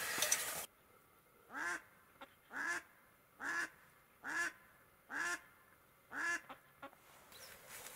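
A hen mallard, a live decoy duck, quacking: six single quacks about a second apart.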